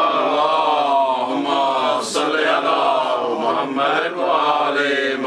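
A man's voice chanting a melodic religious recitation, holding long notes that glide up and down without a break.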